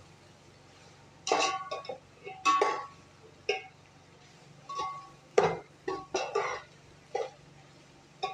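Metal slotted spatula scraping and knocking against a metal pot while stir-frying shredded cabbage and vegetables: about ten irregular strokes, some with a short metallic ring, over a low steady hum.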